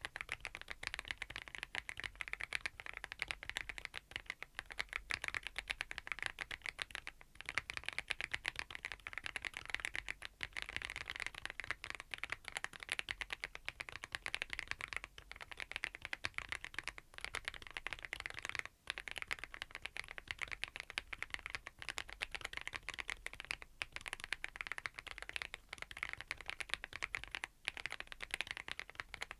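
Fast, continuous typing on a Thinkway TV108 full-size mechanical keyboard with Aurora Ice Cream switches: a steady stream of keystrokes, broken by brief pauses about seven and nineteen seconds in.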